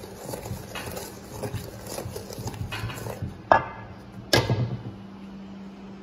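Wooden spoon stirring stiff cookie dough in a stainless steel mixing bowl, with irregular scraping strokes. About halfway through come two sharp metallic clanks from the steel bowls, the second louder and ringing briefly.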